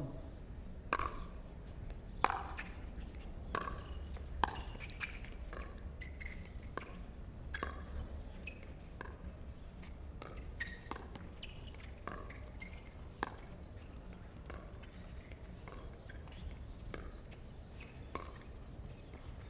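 Pickleball paddles striking a plastic pickleball back and forth in a long rally: a steady series of sharp pops roughly every half second to second, with the ball bouncing on the court between hits.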